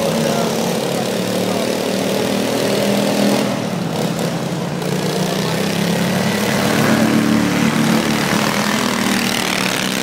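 Riding lawn mower engines running as several mowers race, the engine note rising and falling as they speed up and slow down.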